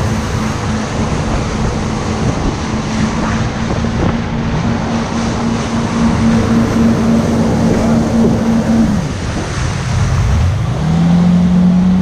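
Yamaha personal watercraft (water bike) engine running at a steady pace over a constant rush of water and wind noise. About nine seconds in the engine note falls away, then climbs back near the end and settles at a slightly lower steady note.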